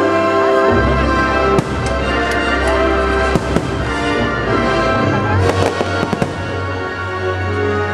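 Fireworks bursting overhead in a string of sharp bangs and crackles, the strongest about a second and a half in and again between five and six seconds, over loud music with sustained tones.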